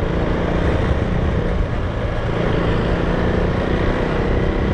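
A vehicle engine running steadily under way, with road and wind noise.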